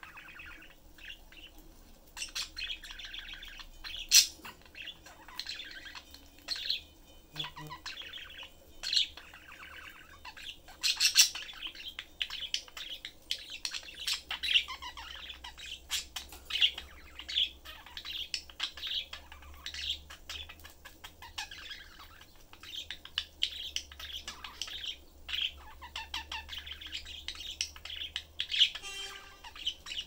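Budgerigars chirping and warbling in a continuous chatter, with sharper, louder chirps standing out every few seconds.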